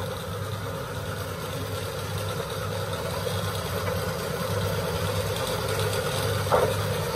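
An engine idling steadily, with one short clack of wooden planks knocking together about six and a half seconds in.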